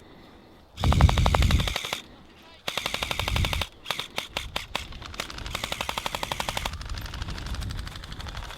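Airsoft guns firing in rapid full-auto bursts of quick, snapping shots. There are several bursts: a loud one about a second in, another about three seconds in, and a long one that ends about two-thirds of the way through, with fainter fire after.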